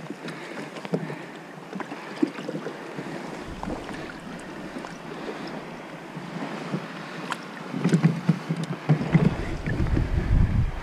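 Water lapping against a plastic kayak hull, with scattered small clicks and knocks as the kayak's metal landing-gear lever and rail mount are handled. A low rumble and louder knocks come in from about eight seconds in.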